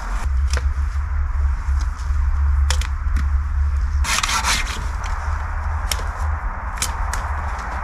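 Japanese pull-saw scraping and rubbing against a thin wooden pole as it is trimmed, with a few sharp clicks and one brief louder rasp about four seconds in, over a low rumble.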